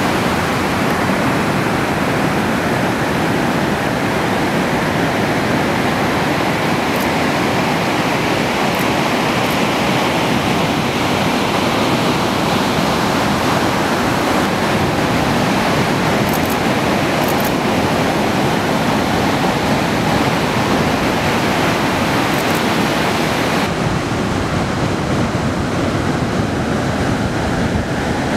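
Ocean surf breaking and washing onto the beach: a steady, continuous rush of white water with no pauses. Near the end the sound turns duller.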